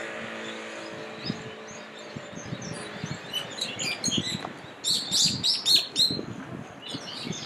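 Small birds chirping in many short, rapid high notes, growing busier and loudest about five seconds in.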